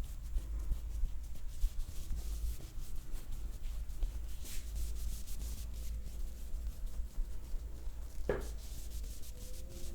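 Hands rubbing and stroking over skin and hair during a massage: a steady dry friction sound with a low rumble underneath. One short squeak a little past eight seconds in.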